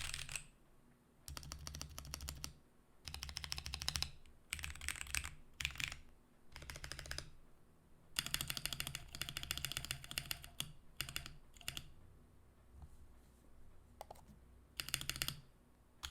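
Typing on a Portico mechanical keyboard with light SP-Star Magic Girl tactile switches: runs of rapid keystrokes, each lasting one to three seconds, broken by short pauses and a few single key presses.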